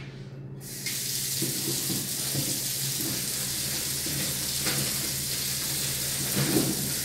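Kitchen faucet turned on just under a second in and running steadily into the sink while baby carrots are rinsed under it, with a few soft knocks as they are handled.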